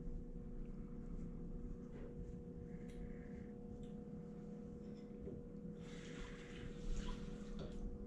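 Faint outdoor ambience with a steady low hum, a few soft clicks and a patch of light hiss near the end.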